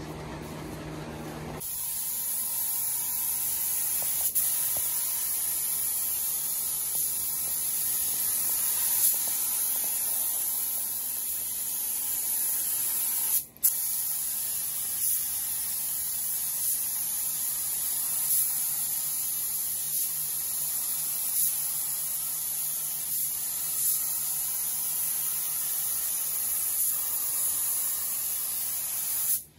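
Gravity-feed compressed-air paint spray gun hissing steadily as it lays on a coat of automotive base coat. The hiss starts about two seconds in, with one short break and click about halfway through.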